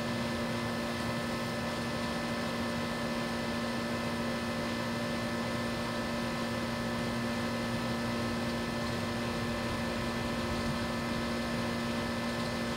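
A motor running steadily, a constant hum at one unchanging pitch.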